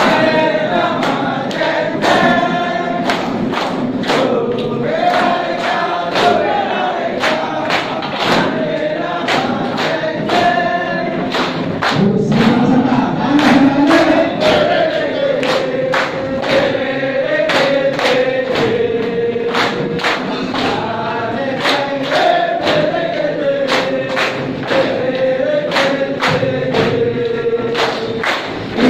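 Large group of men singing and chanting a yel-yel cheer in unison, with sharp percussive beats keeping time.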